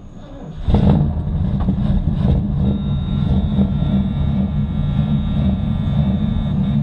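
Carbureted car engine catching about a second in, after its carburetor bowl was primed with fuel, then running steadily with a loud, low, even rumble.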